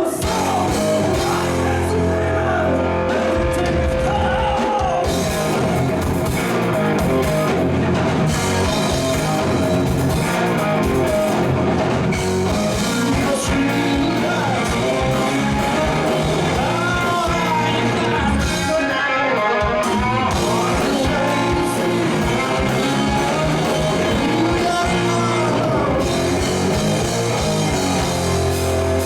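Rock music played by a band, with guitar and drum kit and a voice singing at times.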